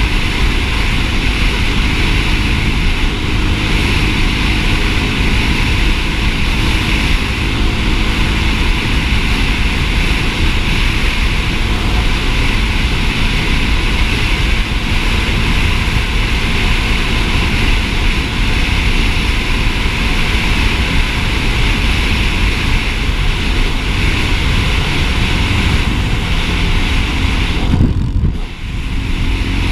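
Dirt bike engine running steadily under way, mixed with heavy wind rumble on a helmet-mounted camera. The sound drops away briefly near the end.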